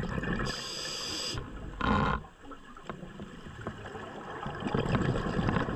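A scuba diver breathing through a regulator underwater. There is a hiss of inhaled air through the demand valve about half a second in, then a long, low rumble of exhaled bubbles that grows louder toward the end.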